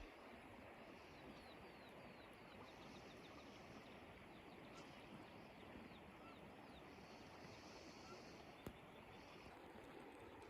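Near silence: faint outdoor ambience with runs of quick, faint, high bird chirps, and a single sharp click late on.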